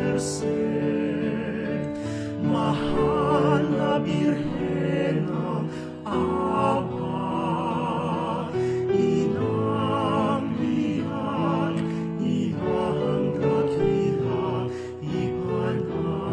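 A Marian devotional hymn: one singer with a wide vibrato over sustained instrumental accompaniment.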